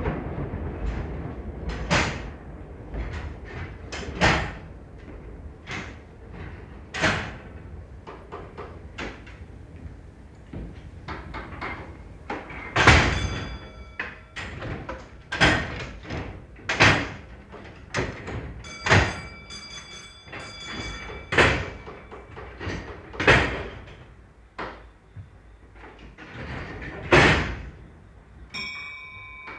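Railway carriage doors slammed shut one after another, about twenty sharp bangs at irregular spacing, some loud and some distant. A whistle starts near the end.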